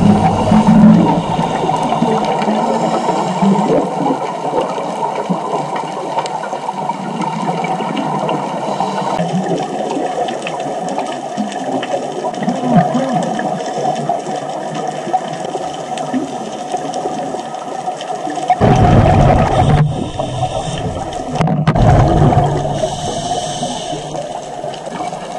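Scuba regulator breathing and exhaled bubbles heard underwater through a GoPro housing: a steady muffled hiss and gurgle, with two louder rushes of bubbles in the last third.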